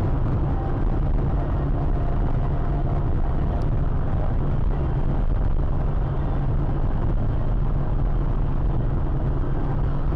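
Steady low rumble of a car on the move, engine and road noise picked up by a dash camera inside the vehicle.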